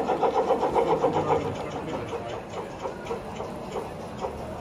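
G-scale model steam locomotive's sound unit chuffing in an even rhythm of about four beats a second. The chuffing drops away about a second and a half in, leaving a quieter, rough running noise of the train.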